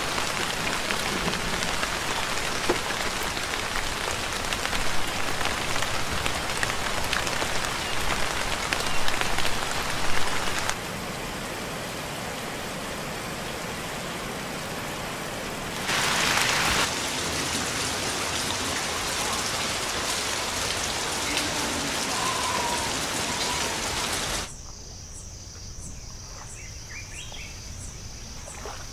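Steady heavy rain falling, its level shifting at a few cuts. Near the end the rain gives way to a quieter outdoor background with a thin, high, steady tone and a few faint chirps.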